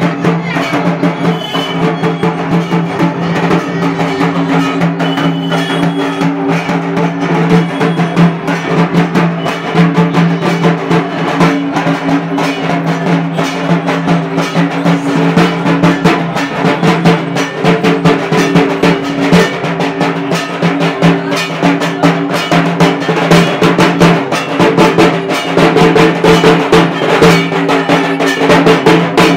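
Music of fast, continuous drumming over a steady low droning tone.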